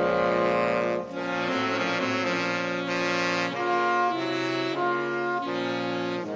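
A saxophone ensemble playing chords together, several saxophones sounding at once. After a short break about a second in, the harmony moves to a new chord roughly every half second.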